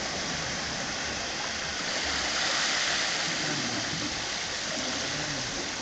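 Seawater rushing and washing steadily along the shore, an even hiss with no distinct splashes.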